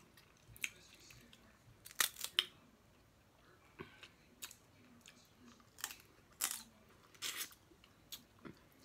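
Snow crab leg shells being cracked and snapped apart: an irregular series of sharp cracks and clicks, the loudest pair about two seconds in, with a longer crackle near the end.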